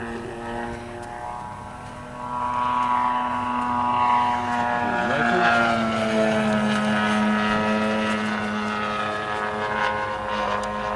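Propeller-driven radio-controlled model airplane flying past, growing louder about two seconds in, its engine pitch dropping as it goes by about five seconds in. A steady humming tone continues underneath.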